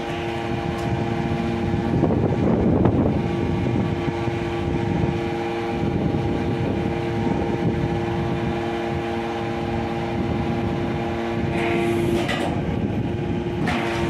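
YD1600A hydraulic scrap metal baler running under load: its hydraulic power unit gives a steady hum with several held tones, under a rough crunching and creaking of scrap metal being compressed in the press box, loudest about two to three seconds in.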